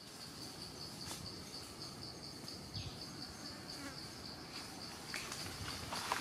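An insect chirping in a steady, high-pitched pulse, about four chirps a second, with a few faint rustling clicks near the end.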